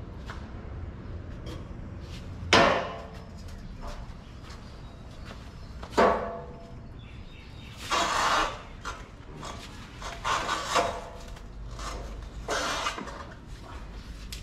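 Metal clanks from a hitch-mounted steel motorcycle carrier and its ramp as a Vespa scooter is pushed up onto it: two sharp, ringing clanks a few seconds apart, then several shorter bursts of clattering and scraping.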